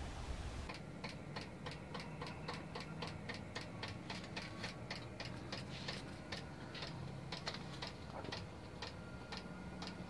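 Diesel heater's fuel dosing pump ticking evenly, about four ticks a second, over a faint low steady hum.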